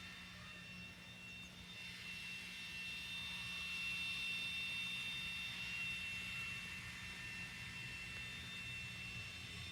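Distant engine noise with a steady high whine, swelling about two seconds in and then slowly easing off.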